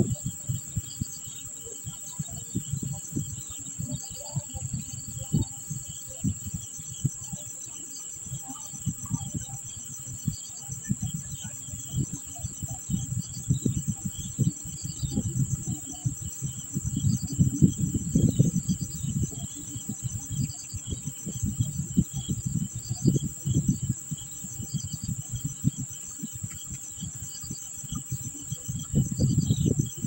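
A steady, high-pitched insect drone with faint short chirps repeating about once a second, under loud, irregular low rumbling buffets that come and go, strongest in the middle and near the end.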